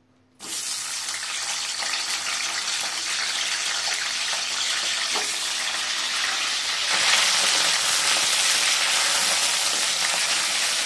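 Small wet brinjals (eggplants) hitting hot oil in a kadai and sizzling hard, the water from their salted soak making the oil spit. The sizzle starts suddenly under a second in and grows louder about seven seconds in.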